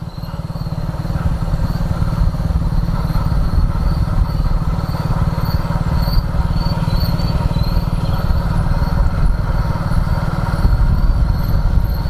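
Motorcycle riding along a road at night, its engine running under a heavy low rumble at the microphone that grows louder over the first couple of seconds. Crickets chirp in short repeated pulses behind it.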